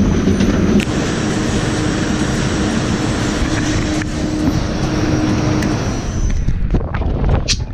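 Steady machinery noise from a potato truck unloading, with a steady hum; about six and a half seconds in it cuts to gusty wind noise on the microphone.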